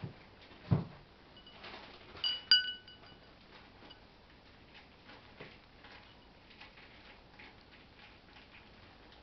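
A cat eating from a white ceramic bowl on a table: a low thump about a second in, then two ringing clinks of the bowl a moment apart at about two and a half seconds, followed by faint small clicks of the cat eating.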